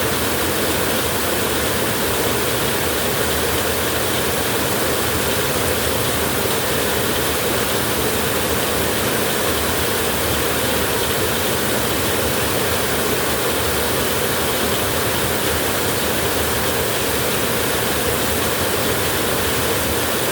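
Light drizzle falling, a steady, even hiss that holds the same level throughout.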